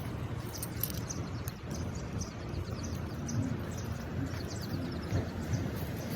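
Small birds chirping in quick short notes, many times over, above a steady low rumble.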